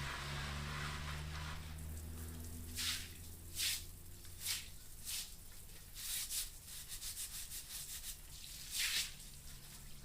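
A series of short scraping strokes, spaced unevenly with a quicker run of them in the second half, over a low hum at the start.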